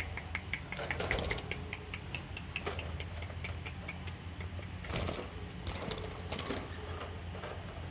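Budgerigars chattering: runs of quick short chirps and clicks, strongest in the first few seconds and again past the middle, over a steady low hum.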